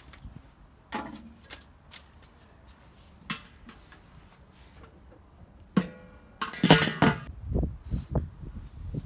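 A few light knocks of metal cookware on metal as a pot is set on a steel tray on the grill grate, then, about six and a half seconds in, a louder clank with a brief metallic ring as the Weber kettle grill's enamelled lid is put on.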